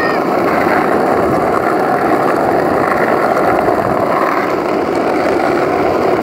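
Wheels rolling over rough asphalt, a steady even rumble that does not let up.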